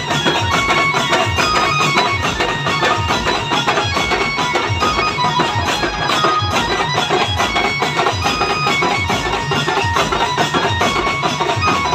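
A banjo band playing loudly through truck-mounted loudspeakers: an amplified banjo plays a fast melody of short notes over a steady beat of drums.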